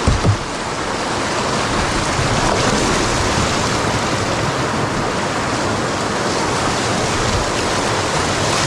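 Whitewater rapids rushing loudly and steadily around a canoe running through them, with a couple of low thumps right at the start.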